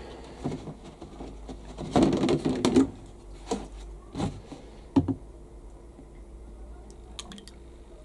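Plastic knocks and clicks from a fabric conditioner bottle and its cap being handled on top of a washing machine: a louder clatter about two seconds in, then a few single knocks, then only faint small ticks.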